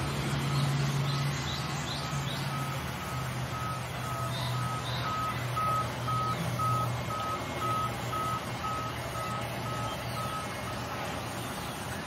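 Sawmill band saw running with a steady low hum, over which a high electronic beep repeats about twice a second, stopping about a second before the end.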